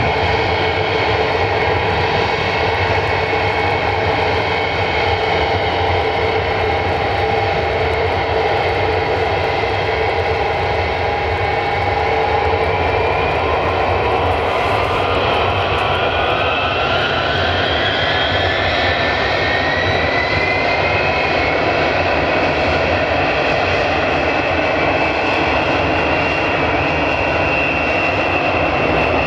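Ilyushin Il-62M's four rear-mounted Soloviev D-30KU turbofans running loud and steady. From about halfway in, a whine rises in pitch and then holds high as the engines spool up to takeoff power.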